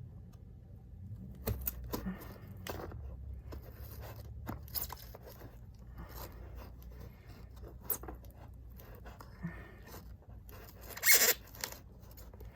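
Scissors scraping and snipping at a mailing package, with scattered clicks and rustling and a louder rasping tear about eleven seconds in. The cutting is not getting the package open.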